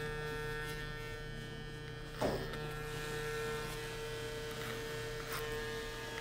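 Cordless electric hair clippers running with a steady buzz as they clean up a line in the side hair, with one brief louder scrape about two seconds in.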